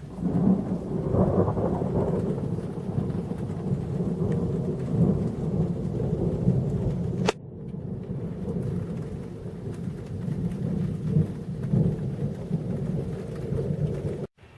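Thunder rumbling long and loud over rain. About halfway there is a sharp click and the sound drops abruptly, then the rumbling goes on more quietly until a short dropout near the end.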